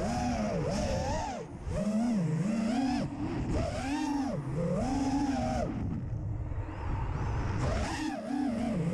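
FPV racing quadcopter's electric motors whining, the pitch swooping up and down about once a second as the throttle changes, easing off for a moment about six seconds in.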